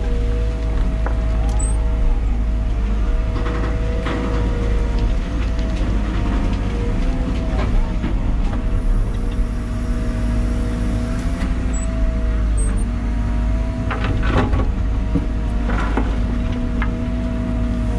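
Liebherr 914 Compact wheeled excavator heard from inside its cab: the diesel engine runs steadily under a hydraulic whine that dips slightly in pitch as the boom and bucket move. A few knocks from the bucket and soil come near the end.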